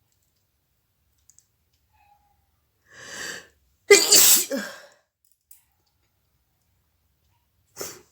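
A woman sneezes: a short build-up about three seconds in, then one loud sneeze about a second later. A brief, quieter sound follows near the end.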